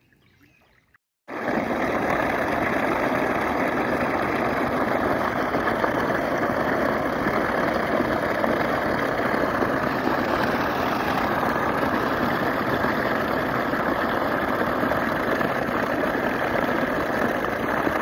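Pond water draining into a 12-inch overflow drain pipe through a debris-clogged canary-cage trash guard: a steady rushing noise that starts abruptly about a second in, after near silence.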